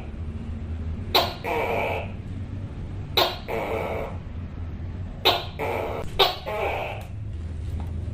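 Tokay gecko giving its repeated two-part "to-kay" call four times, each a sharp clipped note followed by a longer drawn-out one; the first three come about two seconds apart and the last follows closely. A steady low hum runs underneath.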